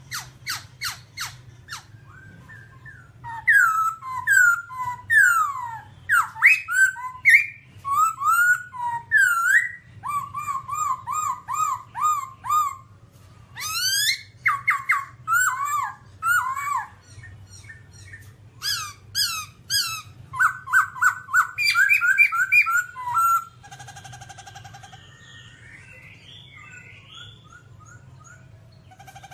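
Black-throated laughingthrush singing a long, varied song. It opens with quick sharp notes, then loud whistled phrases of sweeping and rapidly repeated notes follow, and it turns to softer, quieter warbling near the end.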